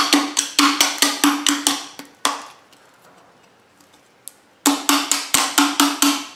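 Fast, even chipping strikes, about four a second, of a stiff putty knife on hardened epoxy at the base of a fiberglass mortar tube, each strike with a short pitched ring. They stop about two seconds in and start again after a pause of about two and a half seconds.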